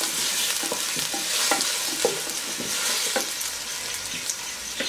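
Nopales frying in hot oil in a clay cazuela: a steady sizzle, with a wooden spoon stirring and knocking against the clay pot every second or so.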